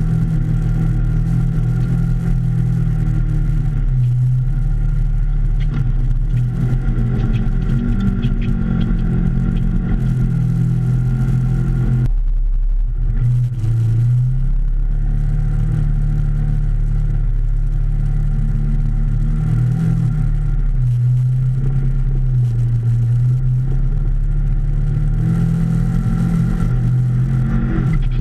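Polaris RZR XP 1000 side-by-side's parallel-twin engine running under way, heard from inside the open cab, its revs rising and falling with the throttle and dropping briefly near the middle.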